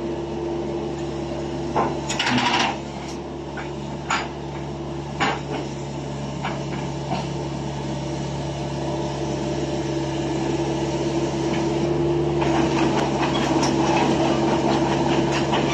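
Doosan DH80 small excavator's diesel engine running steadily, with several sharp metallic knocks and clanks in the first few seconds. About twelve seconds in it grows louder and rougher as the engine takes hydraulic load while the machine lifts itself on its bucket.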